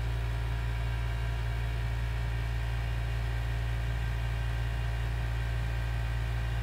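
Steady low hum with a faint hiss.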